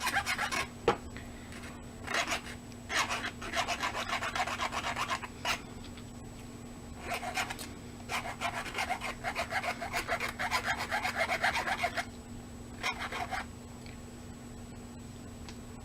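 A hand file scraping across the top of a small rivet in quick back-and-forth strokes, in several spells with short pauses, smoothing off its rough top.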